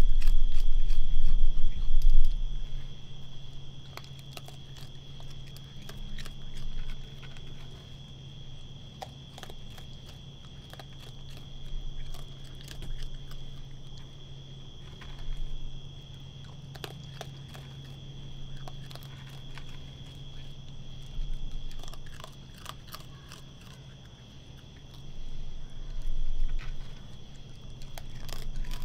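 Raccoon chewing and crunching dry kibble in irregular bursts of sharp crunches, over a steady high-pitched hum. A loud low rumble fills the first two seconds.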